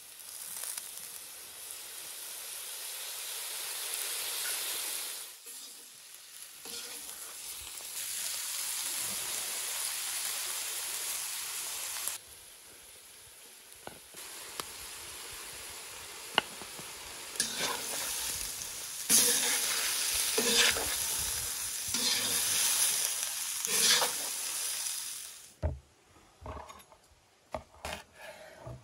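Cubes of beef liver sizzling as they fry in a cast-iron kazan, with a slotted spoon stirring and knocking against the pot; fried potato pieces are tipped in partway through. Near the end the sizzle stops and a knife chops cilantro on a wooden board in sharp separate strokes.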